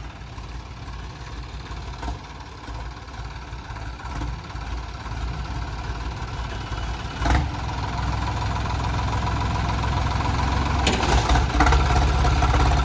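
Sonalika DI 35 tractor's diesel engine running at low speed as it creeps forward, growing steadily louder and heavier from about halfway through, with a short knock a little past the middle.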